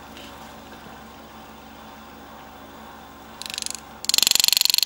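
Pneumatic power-assist engraving handpiece hammering a graver into metal with a fast, even rattle: a short burst about three and a half seconds in, then steady fast hammering from about four seconds in. Before that only a faint steady hum.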